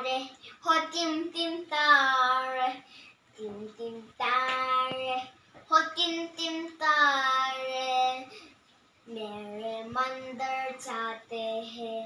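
A young boy singing without accompaniment, in held phrases separated by short pauses.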